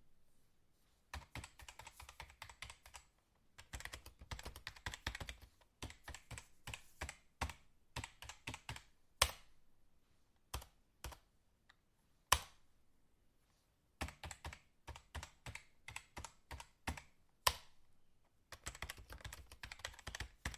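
Computer keyboard being typed on fast, in runs of rapid key clicks broken by short pauses. A few single, louder keystrokes stand out between the runs, about three of them.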